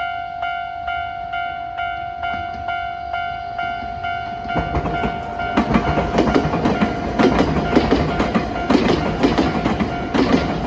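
A Japanese level-crossing warning bell dings steadily, about two strokes a second. About four and a half seconds in, a Nankai electric train arrives and passes through the crossing, its wheels clattering over the rail joints while the bell keeps ringing.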